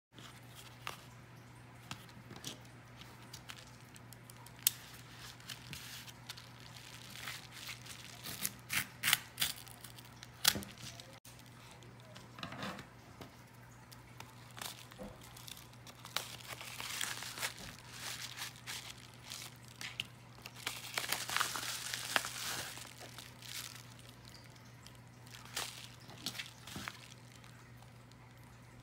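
Hands handling a padded kraft bubble mailer: paper crinkling and rustling, with sharp clicks and taps that cluster about a third of the way in, over a steady low hum.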